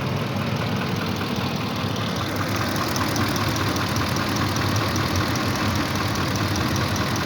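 Ford 5.4 Triton 3V V8 idling steadily with a rapid light ticking knock. The VCT cam-phaser solenoid connectors are unplugged, and the knock sounds no different to the owner, so it is not coming from the solenoids.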